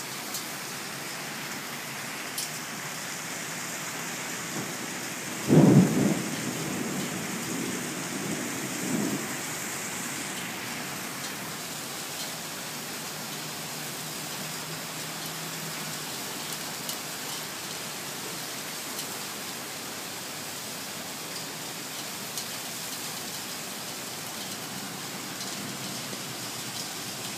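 Thunderstorm: rain hissing steadily, with a sudden sharp thunderclap about five seconds in that rumbles on and dies away over the next few seconds.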